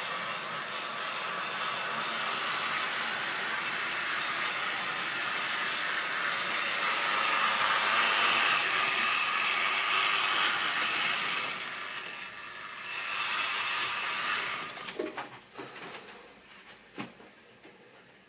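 Electric model railway train running along the track, a steady whirring of its motor and wheels. It is loudest about eight to eleven seconds in as it passes close and fades out about fifteen seconds in, followed by a few light clicks.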